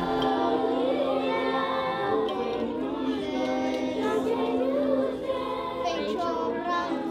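A group of children singing a song together in Portuguese, many young voices in unison.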